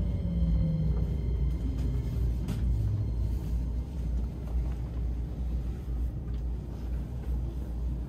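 Inside a Keikyu electric commuter train braking for a station stop: a steady low rumble from the running car, and the traction motors' whine falling slowly in pitch over the first couple of seconds as the train slows.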